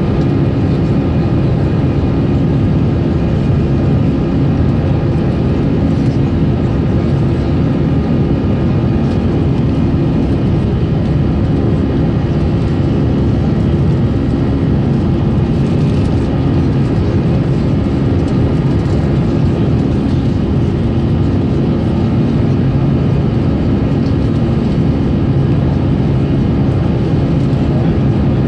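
Airbus A320 cabin noise during the climb after takeoff: the engines and the rush of air outside make a loud, steady drone with several low hums in it.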